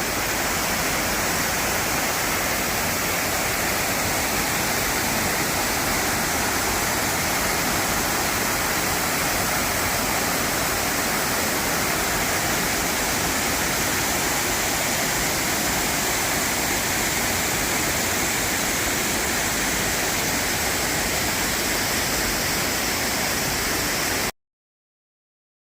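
Waterfall rushing with a loud, steady roar of falling water: Thundering Brook Falls. The sound cuts off abruptly about a second before the end.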